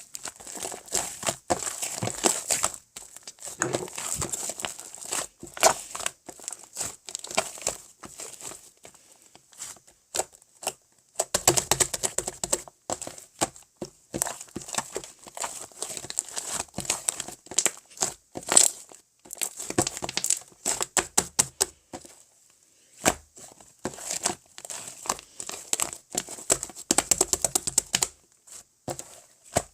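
Slime being squished and stretched by hand, making dense crackling and popping clicks in bursts, with short pauses between handfuls.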